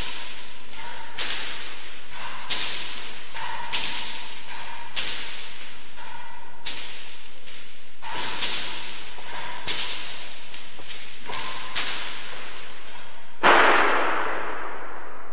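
A fast rally of racket strikes on a hard ball and the ball cracking off the court walls, a sharp hit every half-second to second. Each hit echoes in the enclosed court. A louder crack about thirteen seconds in ends the rally.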